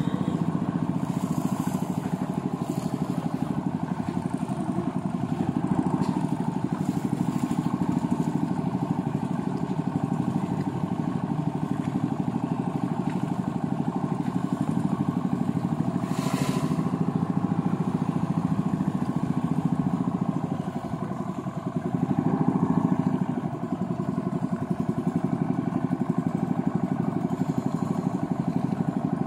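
Small boat engine of a motorized bangka running steadily under way, easing off briefly about two-thirds of the way through and then picking up again.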